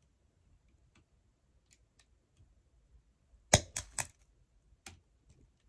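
Faint clicks of wire cutters at the outlet wires, then, about three and a half seconds in, a loud crack followed by three quicker pops: the live outlet wires shorting across the cutters and arcing, because the circuit was not actually dead.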